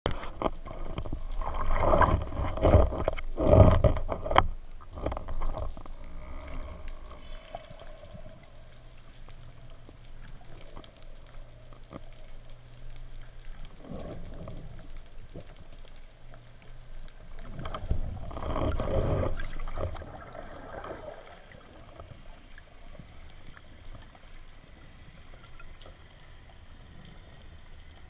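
Water splashing and sloshing around an underwater camera at the surface during the first few seconds, then muffled underwater ambience with a faint low hum. A second burst of rushing water comes about 18 seconds in.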